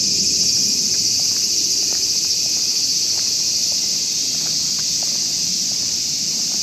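A dense, loud insect chorus: a steady high-pitched drone with no break, with a few faint light ticks underneath.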